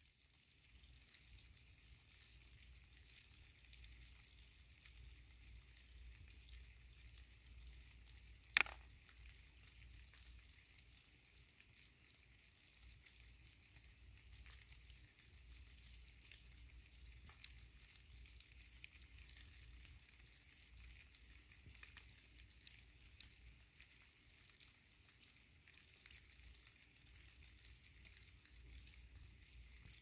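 Silkworms chewing mulberry leaves: a faint, steady crackling of many tiny bites. One sharp click comes about a third of the way in, and a few fainter ticks follow later.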